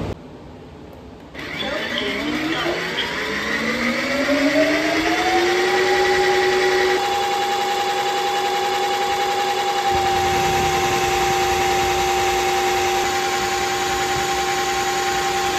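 Vacuum cleaner switched on: its motor whine rises in pitch for several seconds as it spins up, then holds steady. About ten seconds in, a lower rushing noise joins the whine.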